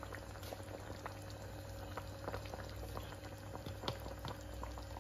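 Pork and potato stew boiling in an open pan: a steady bubbling with many small irregular pops over a low steady hum.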